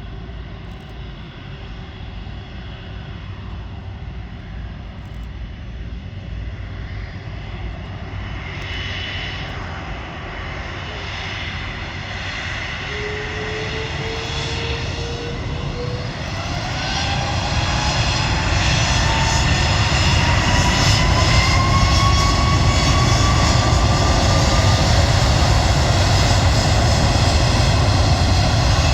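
Airbus A330 turbofan jet engines spooling up: a low rumble with a whine that rises in pitch, growing much louder about two-thirds of the way in and then holding steady at high power.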